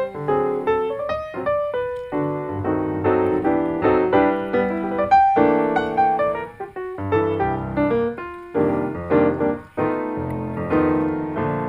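Background piano music: a steady run of struck notes and chords, each fading after it is played.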